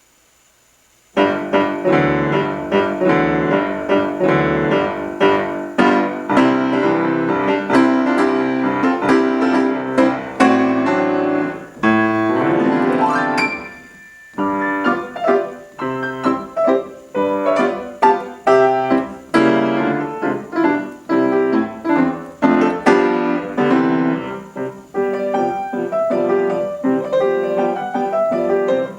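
Solo piano playing a lively classical piece, starting about a second in after silence, with a short break around the middle before the playing resumes.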